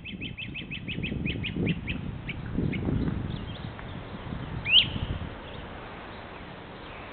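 Wild birds calling: a quick run of short chirps that slows down over the first couple of seconds, then one loud rising note a little past the middle, over a low rumble.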